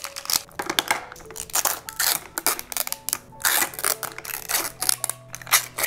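Plastic wrap crinkling and tearing as it is peeled off a Mini Brands toy capsule ball, in a rapid, irregular run of rustles and sharp clicks.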